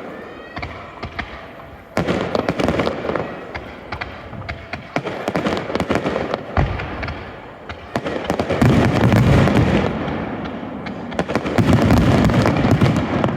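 Aerial fireworks shells bursting in rapid succession with booms and dense crackling. Fresh loud volleys come in about two seconds in, about eight seconds in and again about eleven seconds in.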